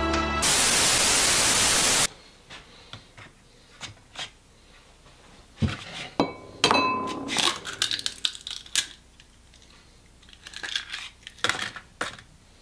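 A loud burst of hiss for about two seconds that cuts off sharply, then eggs being handled and cracked into a glass bowl by a robotic prosthetic hand: scattered sharp clicks, eggshell cracks and short clinks of glass.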